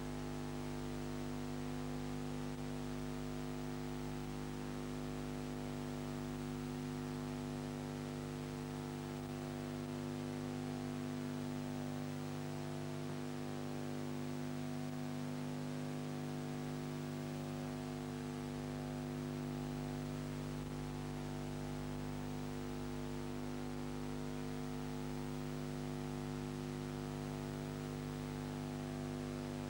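Steady electrical hum made of several constant tones over a bed of hiss, with no other sound.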